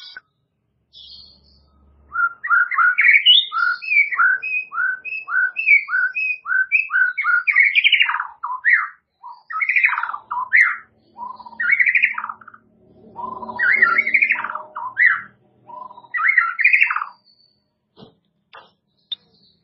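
White-rumped shama (murai batu) singing: a run of quick, clear whistled notes at about two a second, then longer, more varied phrases, the song stopping about three seconds before the end.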